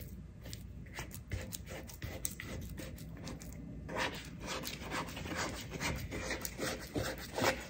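Wet, sticky sourdough dough being pressed and tucked under by hand in a bowl. It makes a run of soft, irregular sticky clicks and squelches as the fingers work it.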